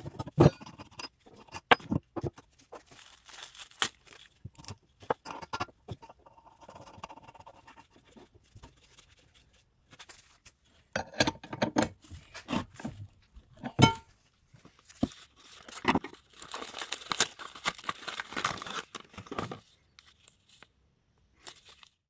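Gloved hands swapping the wheel on a bench grinder with the motor off: a string of irregular clicks and metal knocks mixed with rustling and scraping, with a few brief pauses.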